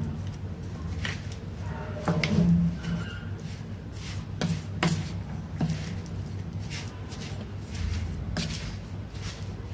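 Wooden chopsticks tossing pieces of meat in a dry spice powder on a plate: irregular clicks of the chopsticks against the plate and each other, with soft shuffling, over a steady low hum. A short voice-like sound about two seconds in is the loudest moment.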